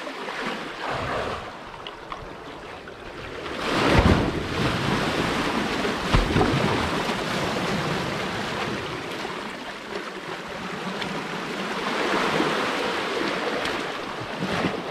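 Sea waves washing up over concrete seawall steps and draining back, surging loudest about four seconds in and again around twelve seconds. Wind buffets the microphone with deep rumbles.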